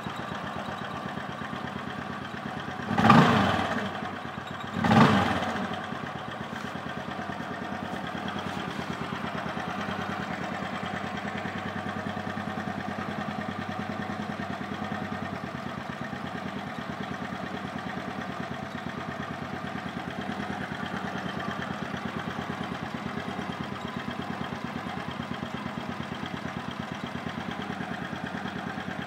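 150 cc scooter engine idling steadily, revved briefly twice, about three and five seconds in, while its belt-drive transmission is checked for an abnormal noise.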